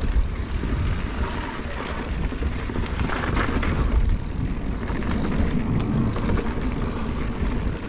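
Mountain bike riding down a dirt trail: a steady low rumble of tyres on the ground and wind on the camera microphone.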